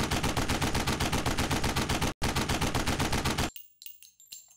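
Rapid automatic gunfire, about nine shots a second, with a brief break about two seconds in; it stops about three and a half seconds in. Faint metallic clinks and high ringing follow.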